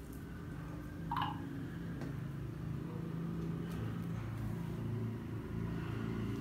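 A banana being peeled by hand: faint soft handling over a steady low hum, with one brief high chirp about a second in.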